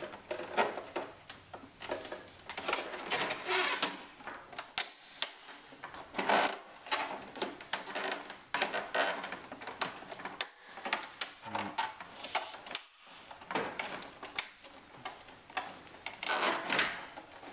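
Plastic glove-box lid panel being pried away from its bonded seam with a trim tool and a metal pick: irregular scraping, rubbing and clicking of plastic on plastic and metal as the glued edge is worked apart.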